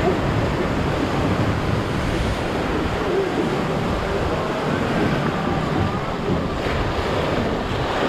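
Whitewater rapids rushing and splashing steadily around a river-ride raft, with wind buffeting the microphone.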